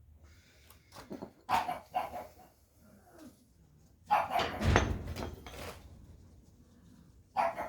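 Pug barking in short bursts, with a louder run of barks about four seconds in and one more near the end.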